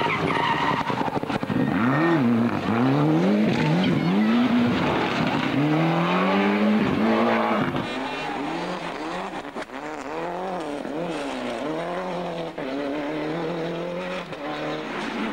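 Ford Escort RS Cosworth Group A rally cars' turbocharged four-cylinder engines driven hard past the camera, in several passes. The engine pitch repeatedly climbs and drops with gear changes and lifts off the throttle.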